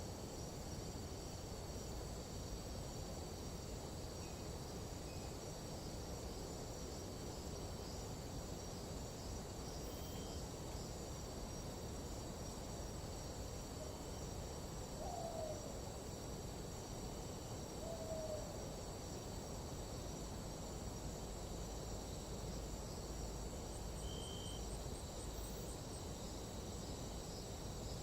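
Nighttime tropical forest ambience: a steady, high-pitched insect chorus over a low rumble of wind. Two short falling hoot-like calls sound about halfway through, three seconds apart.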